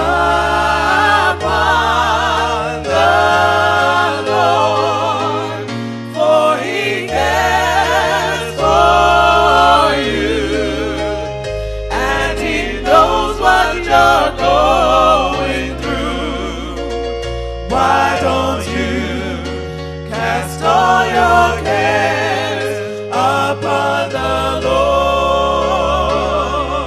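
Gospel music: voices singing with vibrato over a bass line of held low notes that change every second or two.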